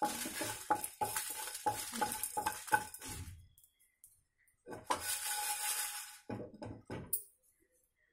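Spatula stirring and scraping coriander seeds, cumin and dried red chillies across a nonstick pan as they dry-roast, with quick clicks and a light hiss of the seeds on the hot metal. The stirring stops for about a second some three and a half seconds in, starts again, and stops about seven seconds in.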